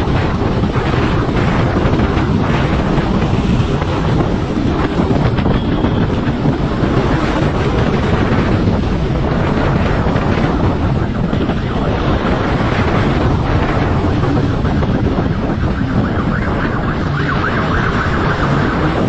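Wind noise on the microphone of a fast-moving motorcycle, a loud steady rush, with the motorcycle's engine running underneath.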